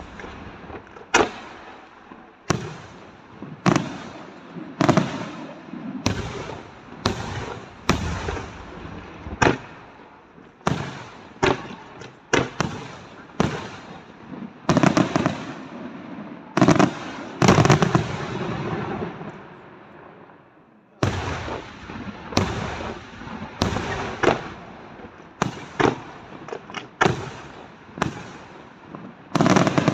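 Aerial firework shells bursting in a rapid series, a sharp bang every second or so, each trailing off in an echo. The bursts ease off briefly about two-thirds of the way through, then resume with a sudden loud bang.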